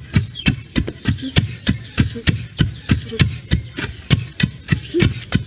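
Several long wooden pestles pounding grain in one mortar, taking turns so the thuds fall in a steady rhythm of about three to four strikes a second.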